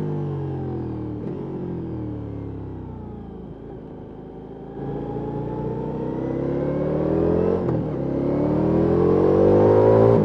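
Ducati Multistrada V4S's V4 engine through an Akrapovic exhaust: the revs fall as the bike slows, then the throttle opens just before halfway and the engine pulls up through the revs. Short breaks in the note, about a second in and near the end, mark gear changes.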